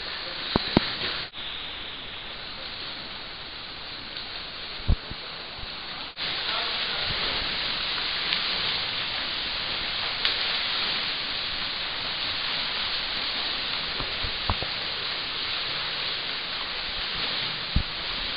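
Continuous splashing and churning water from swimmers in a pool, with a few short thumps and faint voices underneath. The sound changes abruptly about a second in and again about six seconds in, getting louder after the second change.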